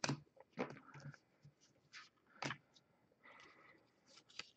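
Faint, irregular ticks and soft swishes of cardboard baseball trading cards being flipped through by hand, card by card.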